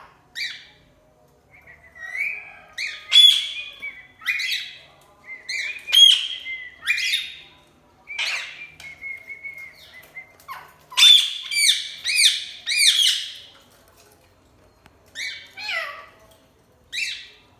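Parrot calling loudly in bursts of shrill squawks and chirps, with a quick run of repeated calls partway through and a few spaced calls near the end.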